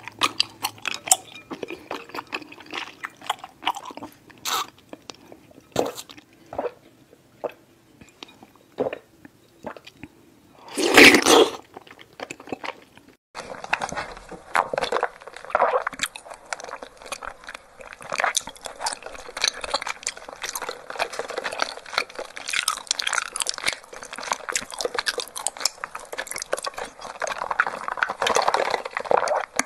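Close-miked eating sounds of bubble milk tea: for the first half, chewing tapioca pearls with sticky, wet clicks and a louder burst about eleven seconds in. From about thirteen seconds, continuous wet slurping and gurgling as milk tea and pearls are sucked up through a wide straw.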